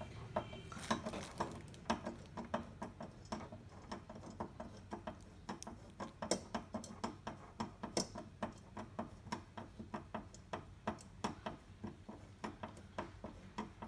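Hand screwdriver turning a screw through a metal TV wall-mount bracket into the back of a flat-screen TV, making a quick, uneven run of small clicks and ticks.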